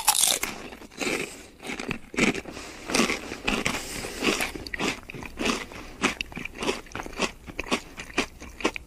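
Crunchy chewing sound effect: someone munching something crisp, with a few crunches a second, unevenly spaced.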